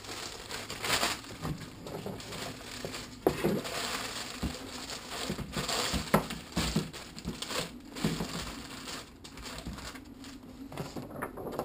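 Thin polyethylene bag crinkling and rustling as it is handled and worked over the frame, with occasional light knocks.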